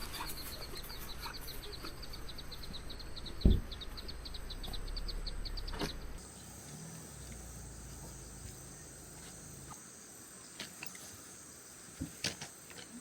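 Insects chirping outdoors in a fast, even pulse of high chirps that stops about six seconds in, giving way to a steady high trill. A low rumble sits underneath. There is a single sharp thump about three and a half seconds in, and a few light clicks near the end.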